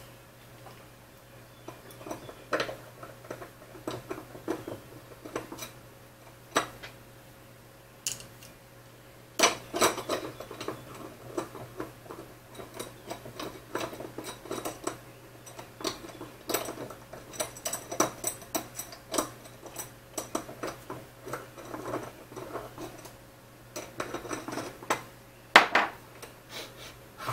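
Hand assembly noise: small metal screws and T-slot nuts clicking and scraping as M5 screws are driven with a Phillips screwdriver through a 3D-printed plastic bracket into an aluminium extrusion, with parts knocking on a wooden tabletop. A sharper knock comes near the end.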